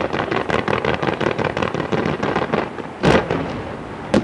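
Fireworks firing: a dense crackle of many rapid small pops, then a louder bang about three seconds in and another sharp bang near the end.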